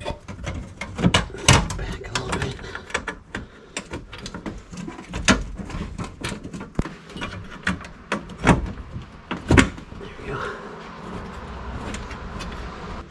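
Plastic cold air intake box and parts being pushed, bent and worked into place by hand: irregular knocks, clicks and scraping, with a few sharper knocks along the way.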